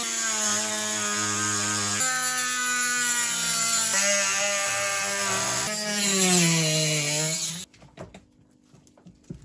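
Dremel rotary tool with a cut-off wheel cutting through a plastic car grille: a high-speed whine that steps in pitch a few times, sags and recovers near the end, then cuts off about three-quarters of the way through. Faint clicks and taps follow.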